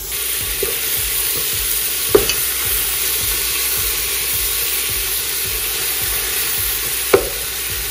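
Ground beef sizzling steadily in a hot pot, frying in its own fat with no oil added. Two sharp knocks come about five seconds apart.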